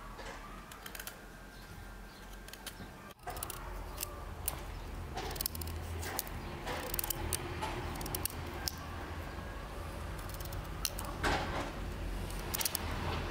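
Kitchen knife cutting raw pumpkin held in the hand: a run of irregular crisp cutting clicks, louder from about three seconds in.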